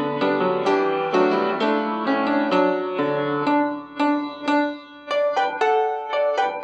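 Instrumental piano music: sustained chords at first, then sparser struck notes and chords with brief pauses from about halfway through.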